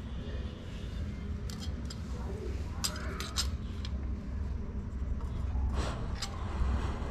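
A few sharp metallic clicks and clinks of kitchen utensils on steel, in small clusters, over a steady low background rumble.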